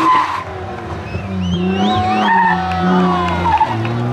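BMW E36 3 Series rally car's engine at high revs, cutting off sharply about half a second in, then pulling again at a lower, steady pitch before the revs drop near the end. A short, wavering tyre squeal sounds about two seconds in as the car slides.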